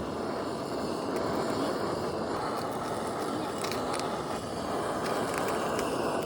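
Steady road and engine noise inside the cabin of a moving Suzuki Jimny Sierra.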